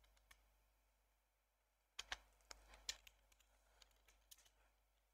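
Faint computer keyboard keystrokes: a quick run of about half a dozen key clicks a little after two seconds in, with a few single taps before and after.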